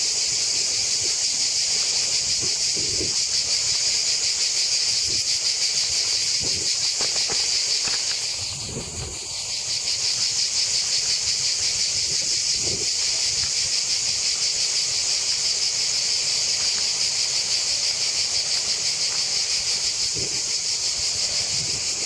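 Cicadas singing in a loud, steady chorus, a high pulsing buzz that fades out briefly about nine seconds in. A few soft low thumps sound underneath.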